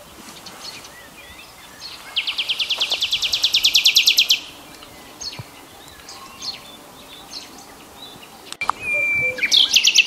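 Songbirds singing: a fast, even, high trill lasting about two seconds and growing louder, then scattered short chirps, with a brief held whistle and another short trill near the end.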